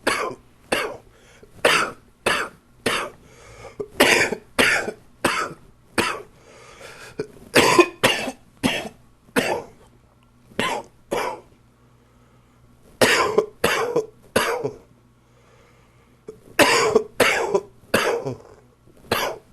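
A man coughing from a chest cold: short hard coughs about two a second in runs of several, broken by two brief pauses in the second half.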